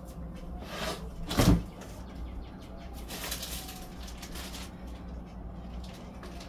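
Kitchen handling noises: a dull thump about a second and a half in, then a few seconds of rustling, over a steady low hum.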